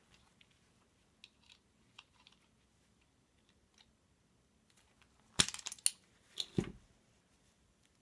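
A DANIU self-adjusting automatic wire stripper snapping through a strip: a quick rattle of sharp plastic-and-metal clacks about halfway through, then a second clack about a second later. Before that come a few faint ticks of the wire being handled.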